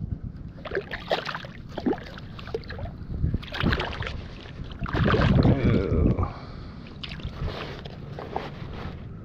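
Splashing at the water's surface as a released pompano kicks away, in a few uneven bursts, loudest about five seconds in.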